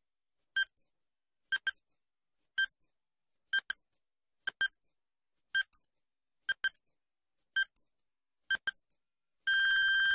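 Quiz countdown timer sound effect: short electronic beeps about once a second, some as quick double beeps, then a longer beep of about a second near the end as the count runs out.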